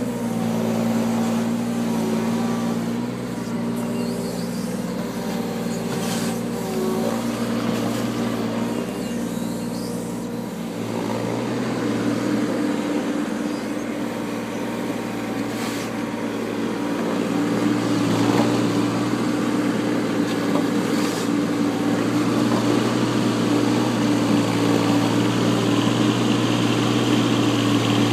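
Takeuchi mini excavator's diesel engine running steadily while its hydraulics work the bucket to push soil back into a trench. Its note shifts higher about ten seconds in, with a few faint knocks along the way.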